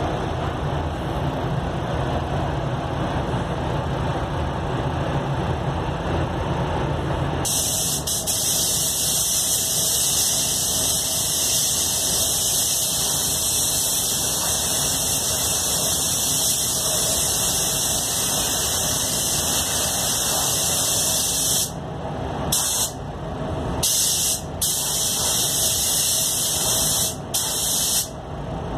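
Iwata Supernova spray gun spraying two-component clearcoat: a loud, steady air hiss that starts suddenly about seven seconds in, after a steady low rumble. Near the end the hiss cuts off briefly several times, between passes.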